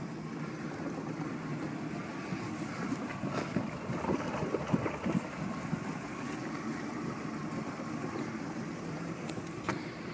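Boat engine idling steadily as the boat eases along at slow speed, with a few knocks and bumps in the middle.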